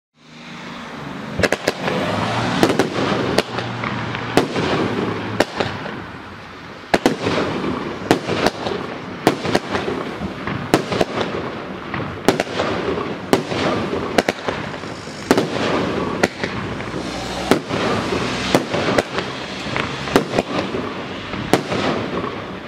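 A Jorge Styx 16-shot, 26 mm fireworks cake firing. It gives a run of sharp shot and burst bangs, roughly one a second, with a steady hiss and crackle between them as the stars burn.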